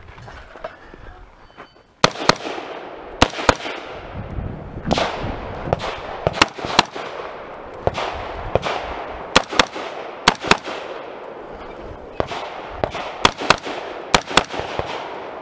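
AR-style rifle fired in a rapid string of shots, many in quick pairs, each crack followed by a short echoing decay. The shooting begins about two seconds in.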